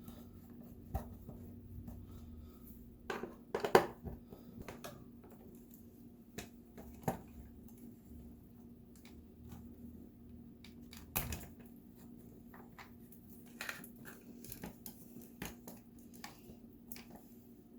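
Scattered clicks, knocks and rustles of a refrigerator ice maker and its parts being handled, over a steady hum; the loudest knocks come about four seconds in.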